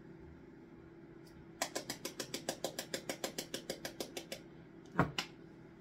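Quick, even tapping on a small plastic spice container to shake curry powder into a beaker of beaten eggs, about nine taps a second for nearly three seconds, then two louder knocks close together about five seconds in. A steady low hum from a running microwave underneath.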